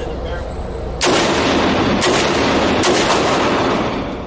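Three gunshots about a second apart, each ringing on in the echo of an indoor shooting range.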